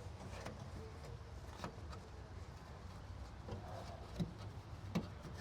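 A few faint plastic clicks and knocks as small plastic clips are pushed into place on the car's trim, over a low steady rumble. The clearest two knocks come about four and five seconds in.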